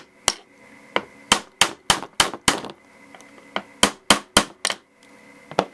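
Hammer striking a steel punch to tap a fiber optic front sight sideways into the dovetail of a Ruger 10/22 barrel, metal on metal. About nine sharp taps come in quick succession, then after a short pause four more and one last tap near the end.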